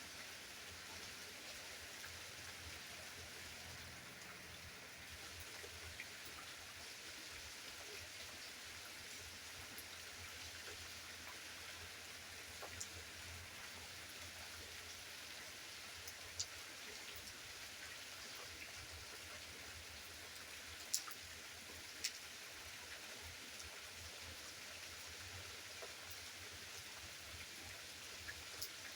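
Steady rain falling, with a few louder single drops striking close by now and then.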